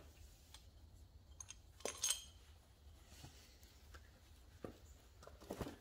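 Faint clinks and knocks of small metal engine parts and tools being handled and set down, with a sharp, ringing double clink about two seconds in and softer knocks near the end, over a steady low hum.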